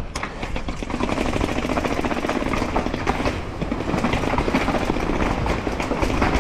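Mountain bike clattering over rough ground at speed, a dense rapid rattle that runs on unbroken, with wind rumbling on the microphone underneath.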